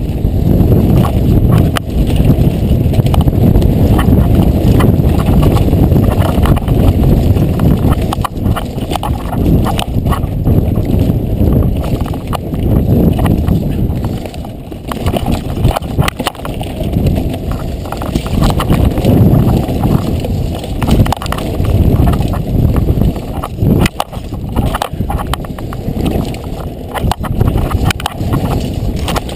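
Mountain bike descending a rough, dusty dirt trail: tyres rumbling over the ground and wind buffeting the microphone, with the bike rattling in many sharp clicks and knocks over the bumps.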